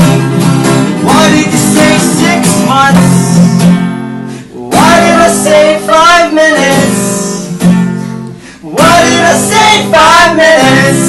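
A song performed on strummed guitar with a voice singing in phrases, the music briefly thinning out about four seconds in and again just past eight seconds.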